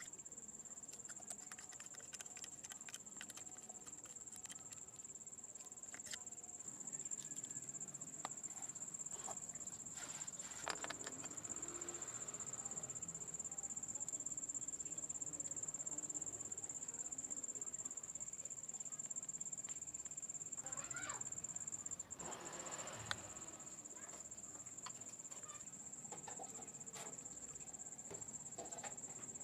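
A cricket trilling in one steady high-pitched note throughout, faint, with scattered clicks and knocks from work being handled nearby, louder about a third of the way in and again past two-thirds.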